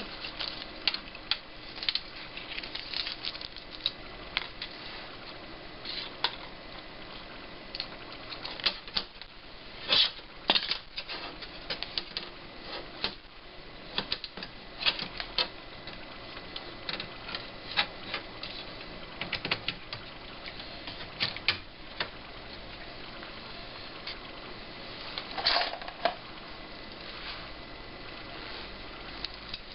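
Irregular light clicks and taps of small parts being handled while a monitor is reassembled, with a longer clatter near the end.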